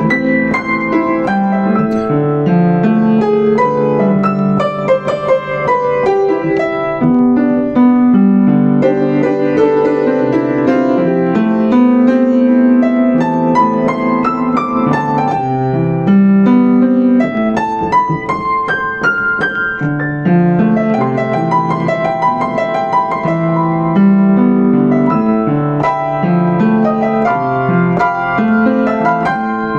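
Yamaha U5 upright acoustic piano played solo, a melody over chords with notes struck continuously.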